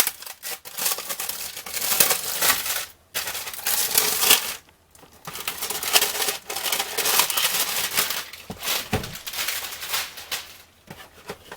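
Cellophane and plastic wrapping of a box of baseball card packs crinkling and tearing as it is handled, in irregular rustling bursts with a few short pauses.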